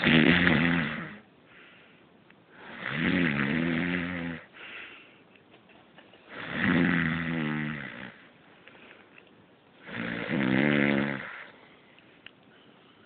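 A man snoring loudly: four long, rasping snores on the in-breath, about one every three and a half seconds, with quiet breathing between them.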